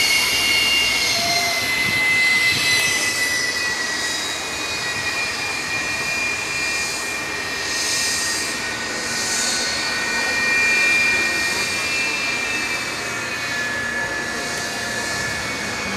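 Jet engine of Bob Motz's jet-powered semi truck running: a steady high turbine whine over a constant rushing roar. The pitch sags slightly about three seconds in and wavers after that.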